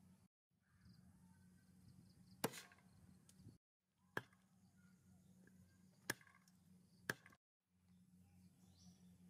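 Kitchen knife chopping through raw chicken feet onto a round wooden chopping board: four sharp chops, one to two seconds apart.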